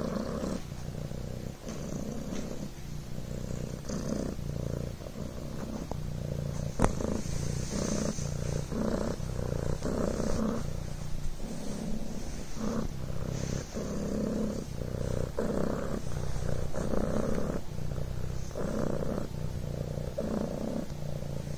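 Devon Rex kitten purring steadily while suckling on a blanket, the purr pulsing about twice a second. A single sharp click comes about seven seconds in.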